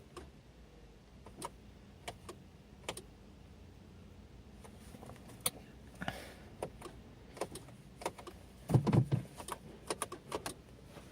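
Renault Fluence clicking, not cranking, when a start is tried: a start problem. The clicks come at irregular intervals, with a louder rapid cluster about nine seconds in, and the engine never turns over.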